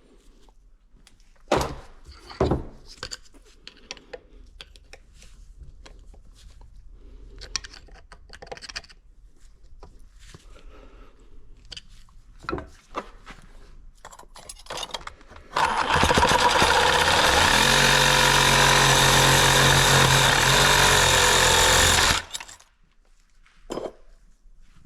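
Power saw starting about fifteen seconds in and running steadily for about six seconds, cutting through the wrecked connecting rod of a 1985 Yamaha Tri-Z engine so that the seized cylinder can come off. It stops abruptly. Before it there is scattered tool clatter, with two sharp knocks a couple of seconds in.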